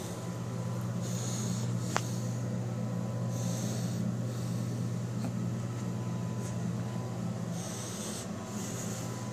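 A steady low hum, with short soft breathy hisses every second or two and a single sharp click about two seconds in.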